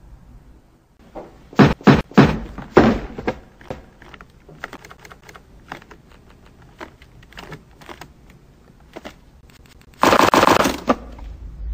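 A quick volley of four or five loud handgun shots in a small room, about two seconds in. A long run of small irregular clicks follows, the sort made by a briefcase's brass lock and latch being worked. Near the end comes a loud, harsh burst lasting about a second.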